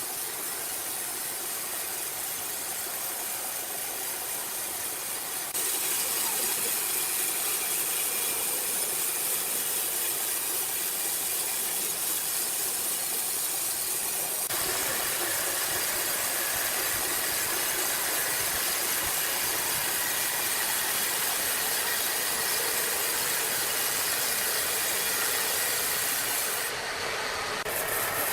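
Sawmill machinery running with a steady, hissing noise, changing abruptly a few times.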